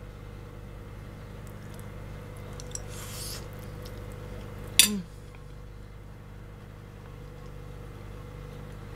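Steady low hum of a small room, with one sharp click about halfway through.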